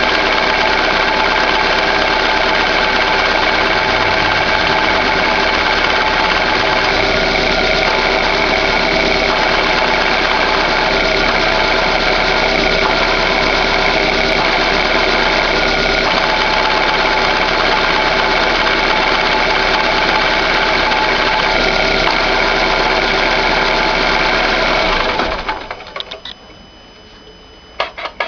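2011 Chevrolet Classic's engine idling with the clutch released, with a steady whine made of many fixed tones, like a worn bearing. It stays even though the release bearing and clutch have been replaced. Near the end the running stops abruptly.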